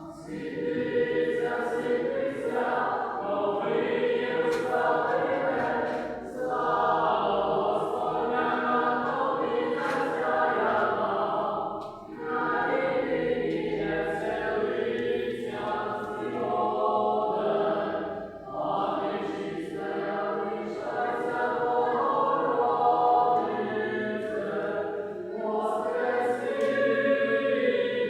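Church choir singing a religious chant in long held phrases, with brief breaks between phrases.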